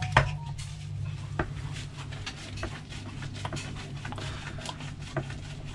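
Small clicks and taps of a screwdriver and plastic RC car parts as a screw is worked into the chassis, with a sharper click about a second and a half in. A steady low hum underneath.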